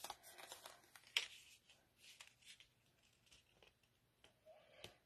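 Near silence with a few faint taps and rustles of paper and cardstock being handled, as a paper tag is positioned and pressed onto a card.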